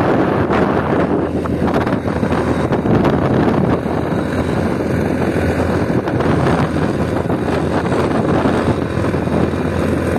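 Wind buffeting the microphone on a moving motorcycle, a steady rushing noise over the low hum of the engine running at cruising speed.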